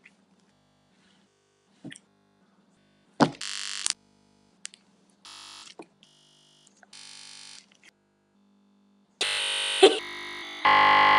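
Short snippets of music with guitar- and synthesizer-like tones, each starting and stopping abruptly with silent gaps between, the loudest bursts near the end.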